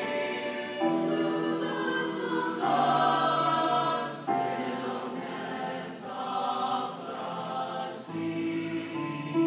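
Mixed-voice choir singing sustained chords in harmony, the chords changing every second or two, with crisp 's' consonants sung together about every two seconds.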